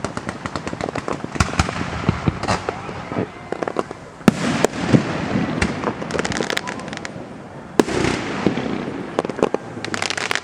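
Aerial fireworks display: a dense run of crackling small reports, with louder single bangs about four seconds in and again near eight seconds, each followed by a rumble.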